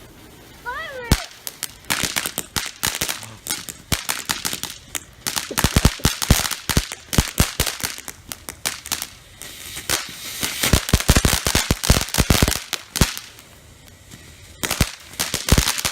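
Consumer fireworks crackling: runs of rapid, irregular sharp pops in dense bursts, with brief lulls between them and a final run near the end. A short, high child's voice is heard right at the start.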